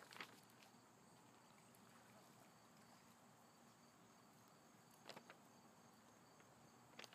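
Near silence: faint room or background hiss, with two soft clicks, one about five seconds in and one near the end.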